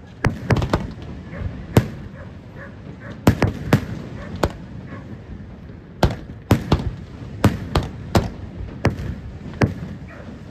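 Aerial firework shells bursting in an irregular string of over a dozen sharp bangs, several coming in quick clusters, with steady background noise between them.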